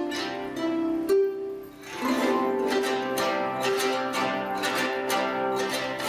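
Zhetigen, the Kazakh plucked zither, playing a kyui melody of quick plucked, ringing notes. The notes die away into a brief lull about a second and a half in, then the playing comes back fuller.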